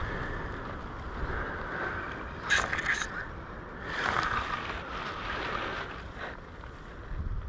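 Wind rumbling on the microphone outdoors, with a few short sharp noises about two and a half and four seconds in.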